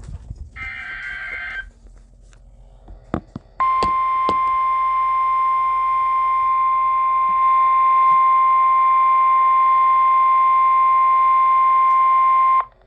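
Weather radio receiving an Emergency Alert System alert: the last burst of the digital SAME header, a warbling data screech about a second long, then a few clicks and the steady single-tone warning alarm held for about nine seconds before cutting off sharply. The alarm tone signals that a severe thunderstorm warning broadcast follows.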